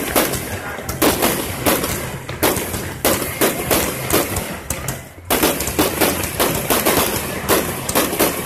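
Aerial fireworks going off in rapid succession: a dense run of sharp bangs, with a brief lull about five seconds in before the bangs come thick and fast again.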